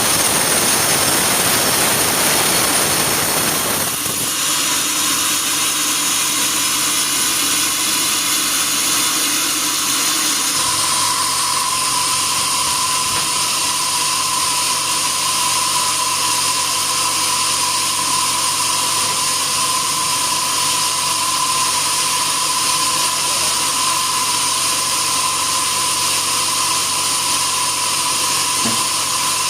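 Sawmill machinery running continuously and loudly. The sound thins out about four seconds in, and a steady high whine joins it about ten seconds in.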